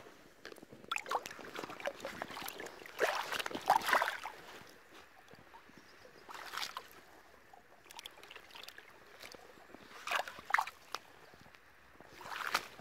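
Shallow water sloshing and splashing in irregular short bursts, with quiet gaps between them.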